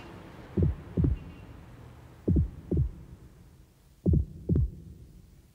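Slow heartbeat sound effect: three deep double thumps (lub-dub), about one every 1.7 seconds, over a faint low hum.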